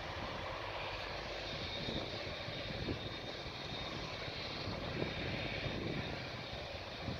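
Distant turbofan engines of a twin-engine widebody jet airliner at takeoff power on its runway roll: a steady rush with a high whine.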